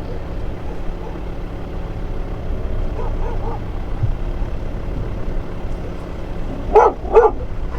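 Vehicle engine running steadily at low speed. Near the end, two short loud pitched calls cut through it.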